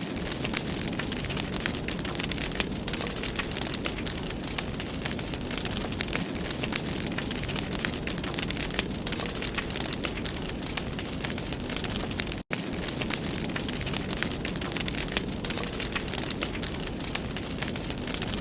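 Wood fire crackling in a fireplace: a steady hiss and rumble full of small pops and snaps, cutting out for an instant once about twelve seconds in.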